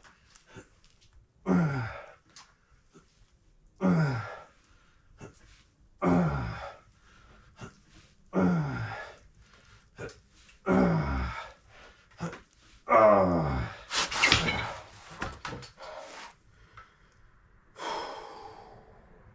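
A man's voiced grunting exhale on each rep of a leg-exercise set, six evenly spaced about every two and a quarter seconds, each falling in pitch. A harsher, noisier gasp follows about two-thirds of the way through, then a softer breath near the end.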